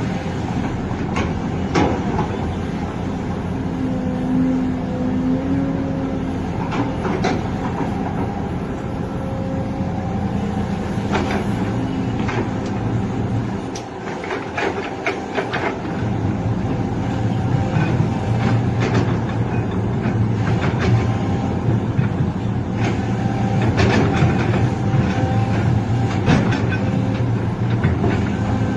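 Excavator's diesel engine running steadily while working, with scattered clanks and knocks through it. The engine sound dips briefly about halfway through, then comes back stronger.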